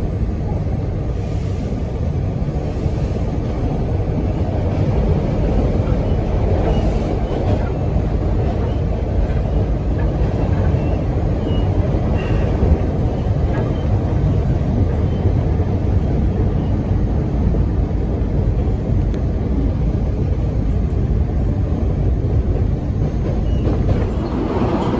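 Steady low rumble of an MBTA rapid-transit train running, heard from inside the operator's cab, with a few faint hisses in the first several seconds.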